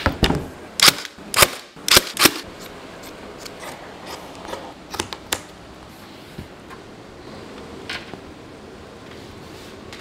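Sharp clicks or snaps from hand work: five loud ones in the first two and a half seconds, then fainter scattered ones.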